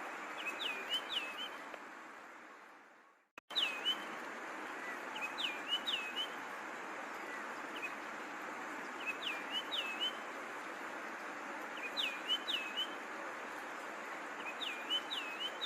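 Longclaw (Macronyx) calling: short, sharp whistled notes that dip and then rise, given in groups of two or three every couple of seconds over a steady background hiss. The recording fades out about three seconds in, and the same kind of calls resume abruptly just after.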